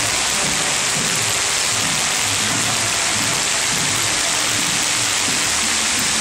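Steady hiss of falling rain, even and unbroken.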